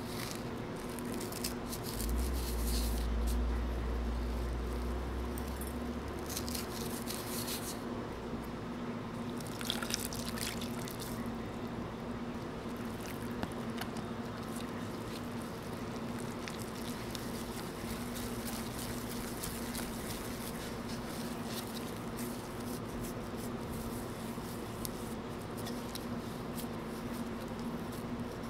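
Liquid poured into glutinous rice flour in a glass mixing bowl, then a spatula stirring and scraping the wet flour into a sticky dough against the glass, over a faint steady hum.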